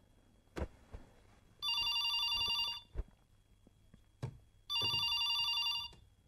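Cordless home telephone ringing with an incoming call: two trilling electronic rings, each about a second long, about three seconds apart. A few soft knocks come in between.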